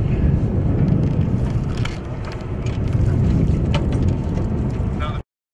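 Low, steady rumbling noise of a boat under way at sea, with scattered light clicks and knocks. It cuts off abruptly to silence about five seconds in.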